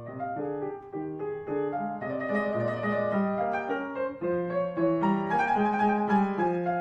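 Piano-led background music with a steady run of notes. A fuller, higher layer joins about two seconds in.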